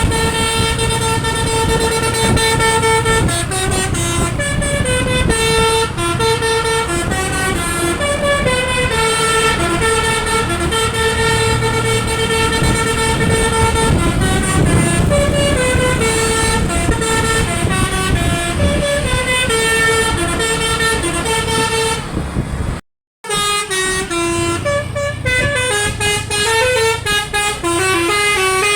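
Tour bus's basuri multi-tone air horn (telolet) played by hand as a koplo-style melody: a run of held and quickly changing horn notes, with the bus engine running underneath. The sound breaks off for a moment about 23 seconds in, then the horn tune carries on.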